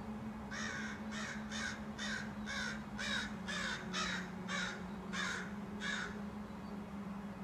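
A crow cawing, a quick series of about ten harsh caws, roughly two a second, that stops about six seconds in. A steady low hum runs underneath.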